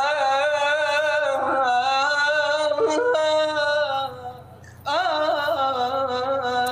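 A single voice singing an unaccompanied Arabic vocal line, holding long, ornamented notes with quick turns in pitch. It breaks off for a breath a little past the middle, then picks up again.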